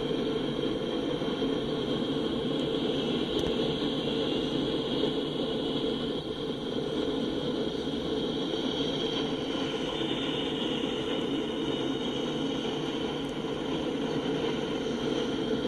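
Freight train passing, a steady mechanical noise: Norfolk Southern diesel locomotives running by, then freight cars rolling on the rails near the end.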